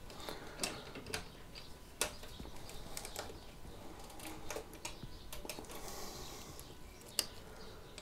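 Scattered light clicks and taps, irregularly spaced and quiet, as small parts of a washing-machine motor are handled; the sharpest come about two seconds in and again near the end.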